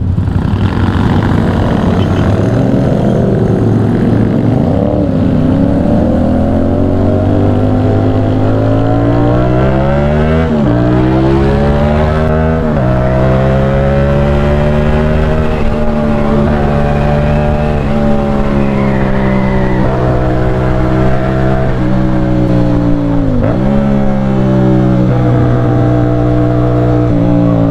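CFMOTO 450SR parallel-twin engine heard from the rider's seat, pulling away and rising in pitch. Its pitch drops and climbs again at two upshifts about ten and thirteen seconds in, then it settles into a steady cruising note, with one brief dip in revs near the end.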